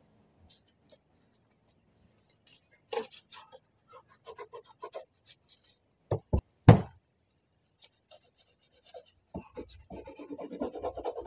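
Carpenter's pencil scratching on a sheet of paper lying on a metal workbench, in short strokes with ticks and taps, the scratching getting denser near the end. A few loud knocks about six seconds in.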